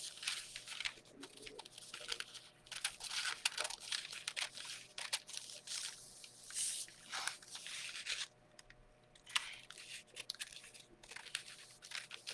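Scissors cutting through a thin decor transfer sheet: irregular runs of short, crisp snips with the sheet crinkling, pausing briefly about eight seconds in.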